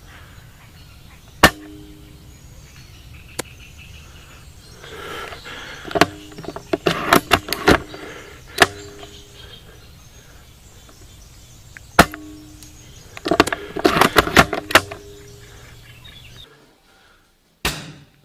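Airsoft bolt-action sniper rifle firing: several sharp cracks a few seconds apart, the loudest followed by a short ringing tone. Two flurries of rapid clicks and knocks fall between the shots.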